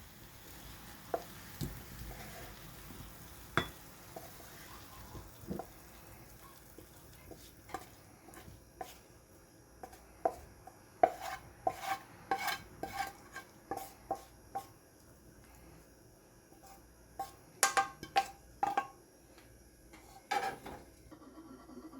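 A serving utensil clinking and scraping against a pan as the cooked chili chicken is dished out, in irregular taps and knocks that come thickest from about seven seconds in. A faint sizzle from the hot pan dies away in the first few seconds.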